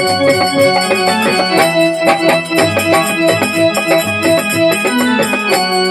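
Harmonium playing a melody over a steady dholak beat: an instrumental break in a Telugu folk devotional song.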